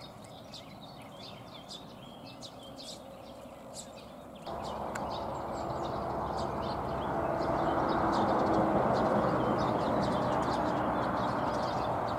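Small birds chirping over a quiet background; about four seconds in, a steady machine drone with a low hum starts suddenly, swells a little and holds, louder than the birds.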